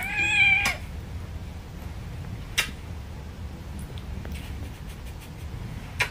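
A kitten gives one short, high meow right at the start. After it come two sharp clicks, about three and a half seconds apart, over a steady low background rumble.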